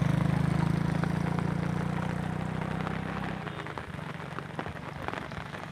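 A vehicle engine idling, fading and cutting out about three and a half seconds in. After that, rain falls, with scattered drops striking close by.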